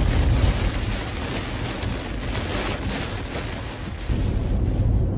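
Heavy rain beating on a car's windshield and roof, a steady hiss with a low rumble underneath.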